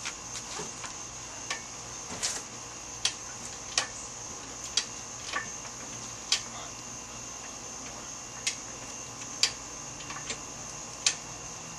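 Sharp metallic clicks and clinks at uneven intervals, roughly one a second, from hand work on an engine hanging from a hydraulic engine hoist as it is eased out. A steady high drone of insects runs underneath.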